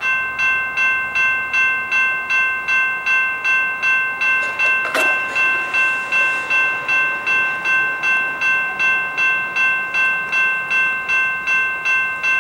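Railroad grade-crossing bell starting to ring suddenly and ringing steadily, close to three strikes a second: the crossing has activated for an approaching train. A single sharp click about five seconds in.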